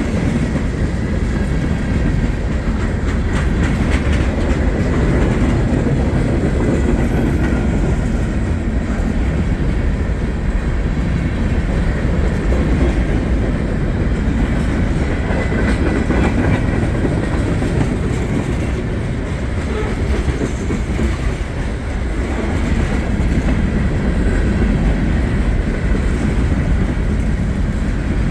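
Norfolk Southern mixed freight train's cars rolling past close by: a steady, loud rumble of steel wheels on the rails.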